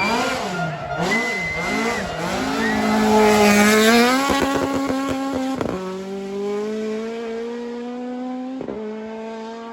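Rally car engine revving up and down hard, then accelerating with two upshifts, about six and nine seconds in, each dropping the pitch with a sharp crack before it climbs again. It is loudest around four seconds in.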